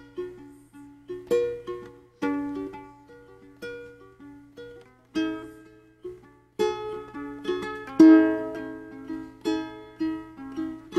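Plucked string instrument playing a slow instrumental introduction, with single notes and chords that each ring out and fade.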